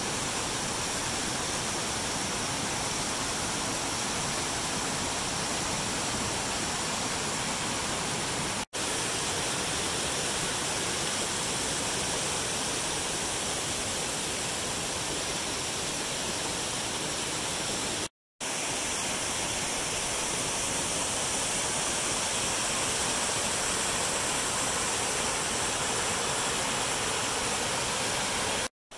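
Creek water rushing steadily down a small rocky cascade, broken by two brief silent cuts about 9 and 18 seconds in.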